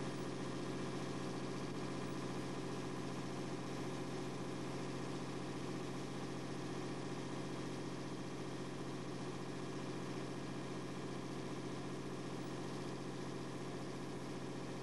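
An engine running steadily at constant speed, an even drone that does not change.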